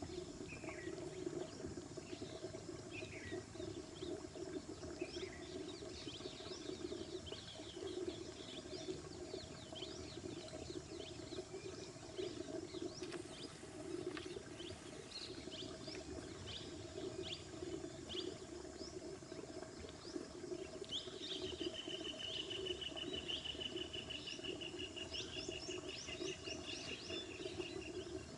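Faint outdoor ambience of wild birds: scattered short chirps and calls throughout, over a steady low hum. About three-quarters of the way in, a long, rapid, evenly pulsed trill runs for about seven seconds.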